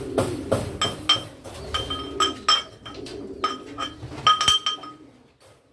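Medicine tablets being pounded into powder: a run of hard strikes that turns into irregular ringing clinks and stops about five seconds in. Pigeons coo softly underneath.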